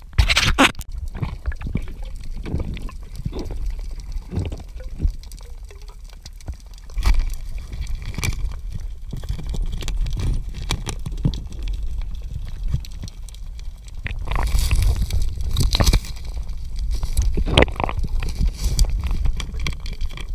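Underwater sound picked up by a diver's camera: a low rush of moving water with scattered clicks and knocks, and a louder stretch of gurgling about two-thirds of the way through.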